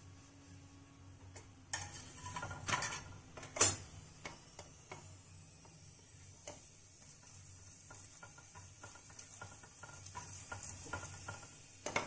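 A metal spatula scraping and knocking on an iron tawa as a paratha is turned over, with a sharp clank about three and a half seconds in, then scattered lighter taps and ticks.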